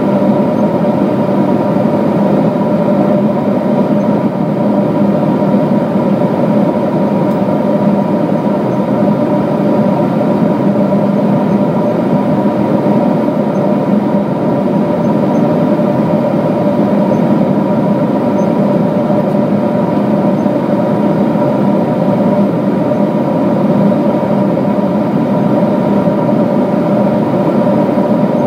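Boeing 777-200 cabin noise at cruise: a loud, steady roar of the jet engines and air rushing past the fuselage, with a few constant hum tones under it.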